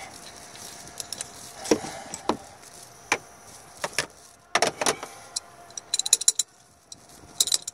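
Metal hand tools clinking and knocking on the alternator pulley as the new one-way clutch pulley is tightened, with two quick runs of rapid clicks near the end.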